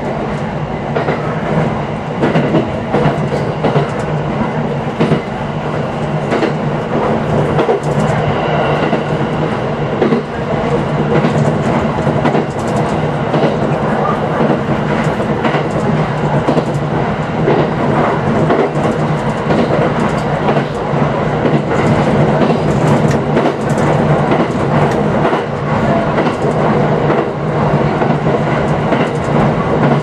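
JR East 701 series electric train running at speed on narrow-gauge track, heard from inside the rear car: a steady running hum with frequent clicks of the wheels over the rails.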